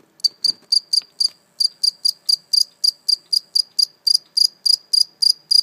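A cricket chirping at close range: a steady, loud train of short high-pitched chirps, about four a second, with one brief pause about a second and a half in. It makes them by rubbing its wings together.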